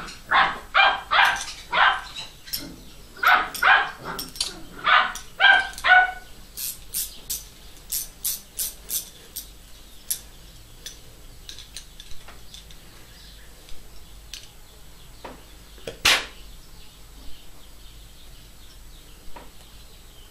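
About ten short, loud, pitched calls in clusters over the first six seconds. Then light metallic clicks and clinks as a steel nut and wrench are handled on a homemade bolt tap, with one sharper click about sixteen seconds in.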